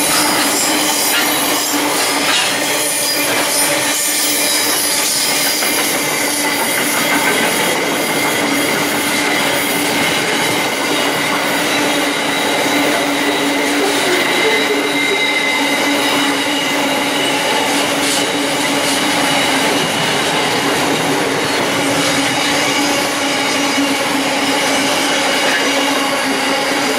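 Freight train wagons rolling past close by: a steady, loud noise of wheels on rail, with constant high squealing tones from the wheels.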